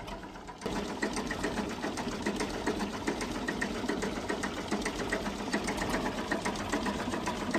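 A fast, even mechanical clatter of rapid ticks that starts abruptly about half a second in and runs on steadily.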